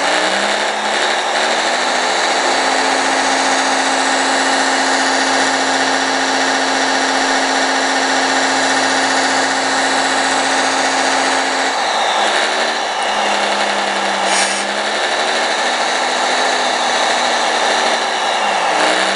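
Radio-controlled scale Doosan hydraulic excavator working: a steady, loud electric whine of its pump and motors, with lower tones that slide up and down as it swings away from the dump truck and back, about twelve seconds in and again near the end.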